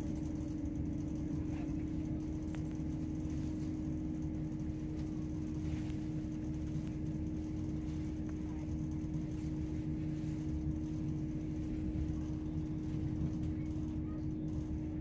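Chiltern Railways Class 168 diesel multiple unit heard from inside the passenger saloon while running at speed: a steady low rumble from the underfloor diesel engine and the wheels on the track, with a constant droning tone over it.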